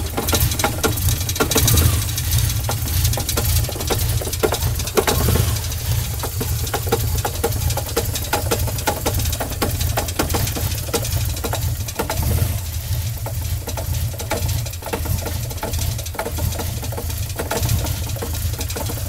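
Toyota Supra MK3 inline-six idling with a heavy, rapid knocking from the bottom end and a steady low rumble: a spun engine bearing, the bottom end worn out.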